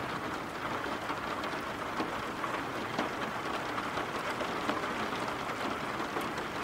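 Steady rain falling on a surface: a continuous even hiss flecked with faint drop taps.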